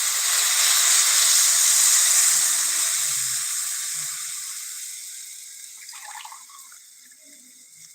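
Water poured into a hot pan hissing and sizzling loudly as it turns to steam, the hiss dying away gradually over several seconds.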